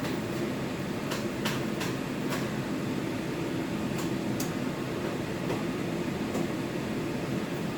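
A steady low mechanical hum, with several light clicks and taps in the first half.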